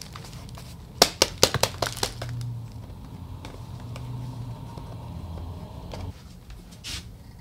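A quick run of sharp knocks and rattles as a freshly filled plant pot is set down and shaken to settle the potting mix, followed by a low steady hum that cuts off about six seconds in.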